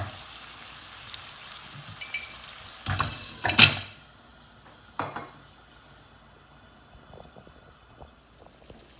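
Onion-tomato masala sizzling in a pan with water just added, broken by a few sharp knocks. About three and a half seconds in, a loud clatter as the lid goes on, and the sizzle drops to a faint, muffled hiss.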